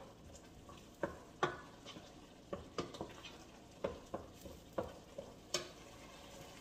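Wooden spoon stirring blended tomato sauce in a metal pot, knocking against the pot's side and bottom in about eight irregular clacks, over a faint sizzle from the hot pan.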